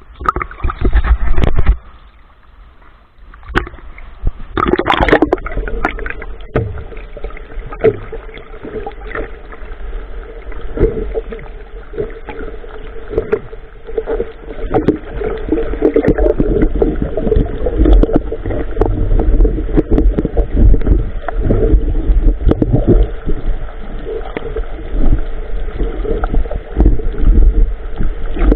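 Irregular water sloshing and splashing with many small knocks and a heavy low rumble. There are two louder bursts in the first few seconds.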